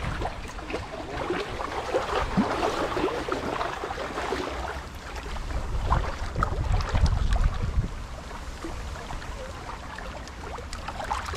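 Strong wind buffeting the microphone in gusts, a low rumble that swells and fades over a steady rushing hiss.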